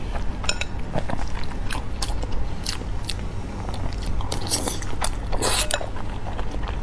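Close-miked eating of soft whole eggs from hot-and-sour broth: wet biting, chewing and lip smacks in irregular clicks, with a longer wet sound about five seconds in.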